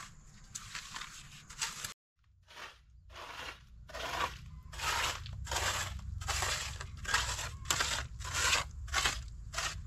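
A hand tool scraping and crunching through gritty material in quick repeated strokes, about two a second, with a brief break about two seconds in.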